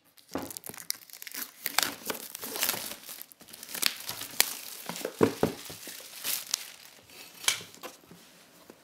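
Clear plastic shrink-wrap film being torn and peeled off a cardboard box, crinkling and crackling in irregular snaps that die down near the end.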